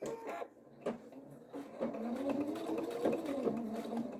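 A few sharp clicks, then from about two seconds in an electric sewing machine runs steadily, stitching a seam through quilted fabric.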